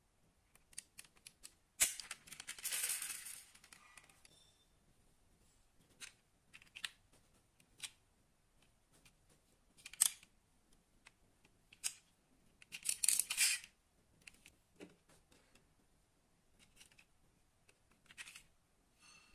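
Diecast metal model cars being handled close up: scattered small clicks as their opening doors are worked, with short rustles of fingers on the bodies. The sharpest click comes about two seconds in, followed by a couple of seconds of rustling, with another sharp click around ten seconds and a cluster of clicks and rustles around thirteen seconds.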